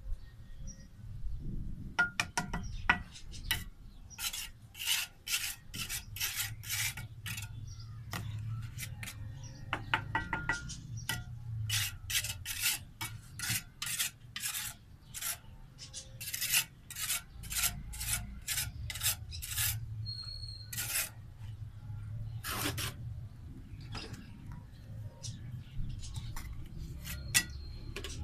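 Bricklaying by hand: rasping scrapes of mortar being worked on red clay bricks, in quick runs of about two or three strokes a second with pauses between.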